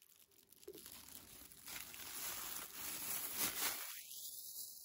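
Faint crinkling and rustling of thin disposable plastic gloves as cotton pads are handled and pressed onto the skin.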